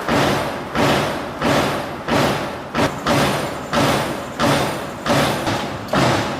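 Repeated heavy thuds in an even rhythm, about two a second, each fading out before the next.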